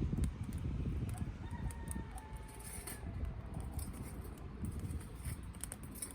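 Wood fire burning in a small wood-gas stove, a steady low rumble with scattered crackles and pops. A faint rooster crow sounds from about a second in and lasts about a second and a half.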